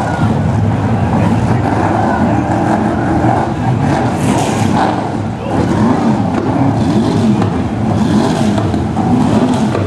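Several BriSCA F1 stock cars' V8 engines running and revving as the cars circulate the oval, the engine note rising and falling as they pass.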